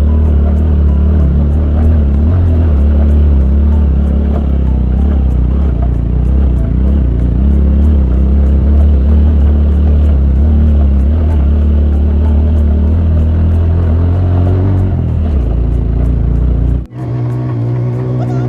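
Motor vehicle engine running steadily under way on a rough road, a loud low drone. It cuts off abruptly about 17 seconds in and resumes at a slightly higher, steadier pitch.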